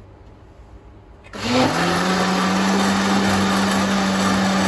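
Electric countertop blender switched on about a second and a half in. It spins up quickly, with the pitch rising briefly, then runs with a steady hum as it churns thick cultured cream and water to separate butter.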